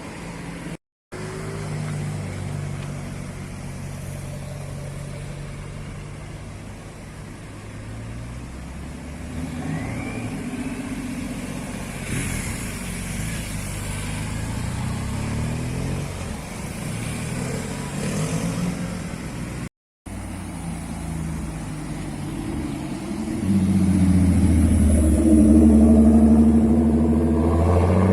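Car engines running as modified cars drive slowly past, their pitch sliding up and down, with two brief dropouts where the footage is cut. Near the end one engine gets louder and revs up.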